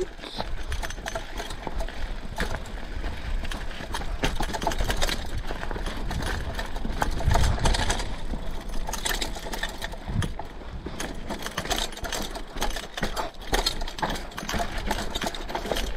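Mountain bike riding over a rough, rocky trail: a dense, irregular clatter of knocks and rattles from the tyres on rock and the bike itself, with a low rumble underneath.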